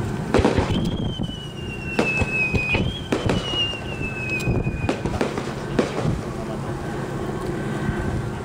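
Aerial fireworks launching and bursting, with several sharp bangs spread through the first six seconds. Two long whistles slowly fall in pitch, the first starting about a second in and the second, higher one right after it, around three seconds in; each lasts about two seconds.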